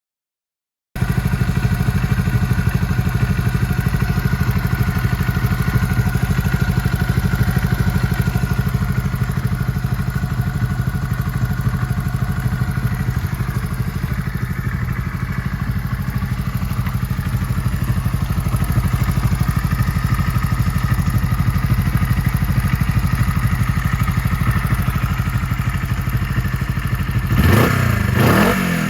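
Honda CB125T's air-cooled parallel-twin engine idling steadily, just after an oil change with Super Zoil additive. It cuts in abruptly about a second in, and near the end the throttle is blipped twice, the revs rising and falling quickly.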